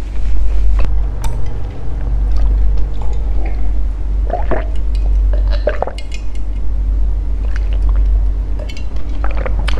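Close-miked chewing of a mouthful of durian sticky rice, then swallowing gulps of water drunk from a glass, with small wet mouth clicks. A steady low hum runs underneath.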